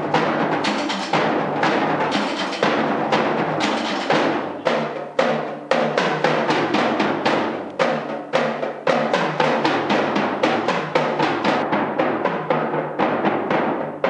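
Percussion ensemble playing drums with sticks: a fast, dense rhythm of strokes with regular accents.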